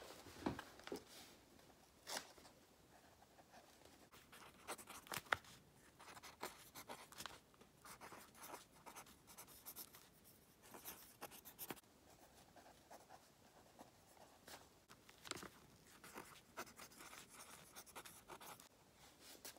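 Faint scratching of a pen on lined notebook paper in short, irregular strokes as a name is written out by hand.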